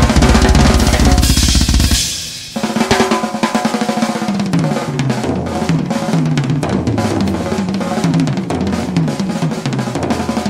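Drum kit played solo at speed: rapid snare and tom strokes over fast bass drum, with a cymbal crash about a second in. After a brief drop just past two seconds, repeated tom runs falling in pitch play over a continuous fast bass-drum pattern.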